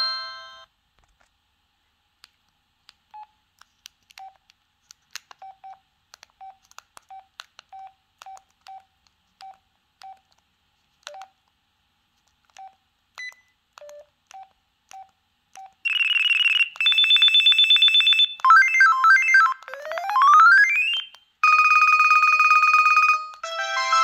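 LG UX390 flip phone: its power-up melody fades out at the start, then short single key beeps sound as the menu buttons are pressed. From about 16 s the phone's speaker plays a string of short electronic ring tones one after another (buzzing trills, a steady tone, a warble, a rising sweep, a two-tone buzz), previews of its preset ring tones as the list is scrolled.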